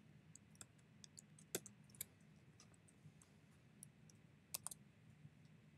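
Faint, scattered keystrokes on a computer keyboard while code is typed: single clicks spread irregularly, with a louder close pair about four and a half seconds in.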